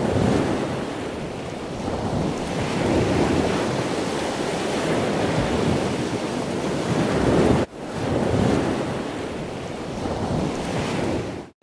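A loud, steady rushing noise with no distinct tone, swelling and easing every few seconds. It cuts out sharply for a moment about eight seconds in, then comes back.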